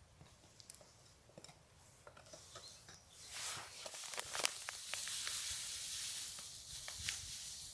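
Food sizzling in a pan on a small wood-burning camp stove: quiet small ticks at first, then from about three seconds in a steady high sizzle with sharp pops and crackles, easing off near the end.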